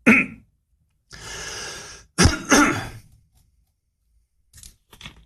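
A man takes a breath, then clears his throat with a short cough. A few faint clicks follow near the end.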